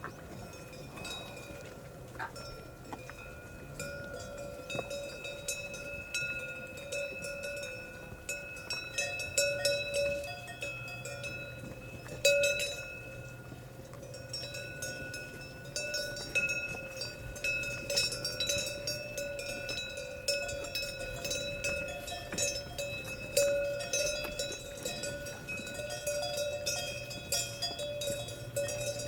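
Several cowbells on cattle clanking and ringing at once, in an irregular patter of strikes that grows busier and louder at times, the loudest clank about twelve seconds in.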